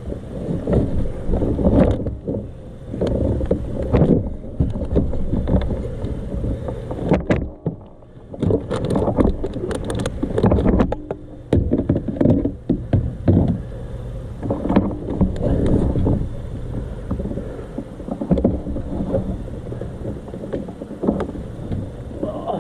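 Close handling noise in a kayak: irregular knocking, rubbing and rustling against the hull and gear, with a run of sharp clicks and knocks about halfway through, as a large blue catfish is hauled aboard onto the angler's lap.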